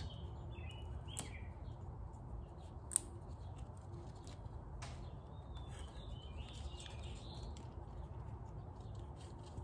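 Wire cutters snipping oxygen-sensor wires: a few faint, sharp clicks, the loudest about three seconds in, over a low steady hum.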